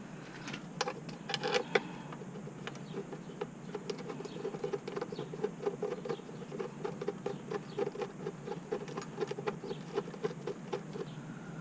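Ratchet wrench clicking in quick runs of strokes as bolts are run in and tightened.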